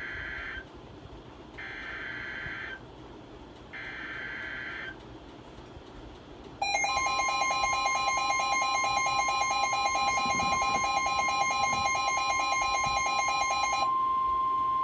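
Emergency Alert System tones: three short buzzing bursts of digital header data, about a second each with pauses between. Then, about six and a half seconds in, a loud, harsh, pulsing attention signal begins together with a steady pure tone. The harsh signal stops about fourteen seconds in while the steady tone carries on.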